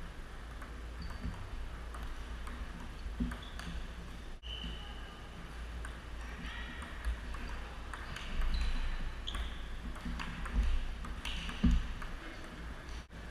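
Table tennis ball clicking off paddles and the table in quick, irregular back-and-forth rallies, over a steady low hum.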